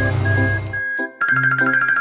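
Children's cartoon background music with a bright tinkling chime effect. The music drops out briefly about a second in, then comes back with a quick run of ringing dings.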